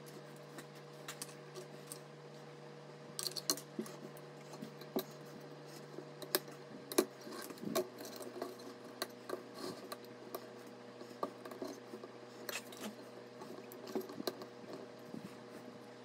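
Irregular clicks, taps and rattles of plastic PC case fans and their wire mounting clips being handled and snapped onto a tower CPU cooler's heatsink, over a steady low hum.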